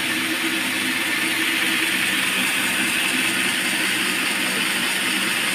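Band sawmill running steadily: a constant machine hum with a hiss above it, level throughout.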